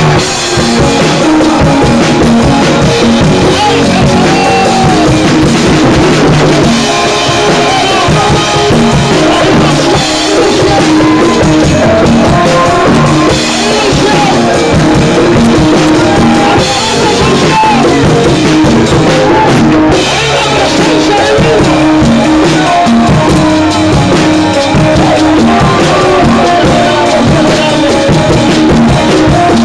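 Live worship band playing loud, continuous music: a drum kit with cymbals keeping the beat, with voices singing.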